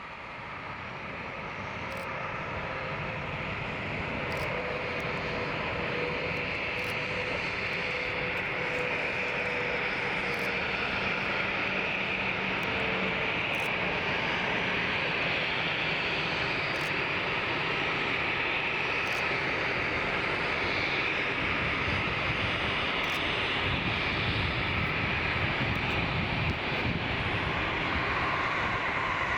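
Jet engines of an arriving Boeing 777 airliner. The sound swells over the first few seconds and then holds as a steady, loud jet rumble, with a faint whine in the first half.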